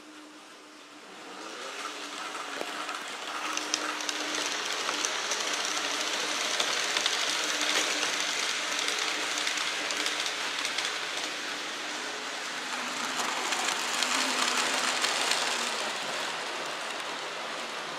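N-scale model container freight train running past on the layout's track: a steady metallic rolling rattle of small wheels on rails and points, with light clicks. It builds up about two seconds in and eases slightly near the end.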